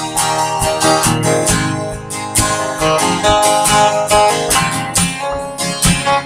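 Strummed acoustic guitar playing chords in a steady rhythm during an instrumental stretch of a song.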